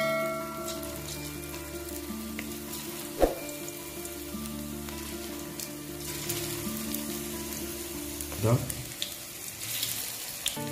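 Cornflour-and-egg-battered chicken pieces deep-frying in hot oil in a metal kadai, a steady hissing sizzle as the pieces are dropped in one by one. Two sharp knocks come about three and eight seconds in, over soft background music.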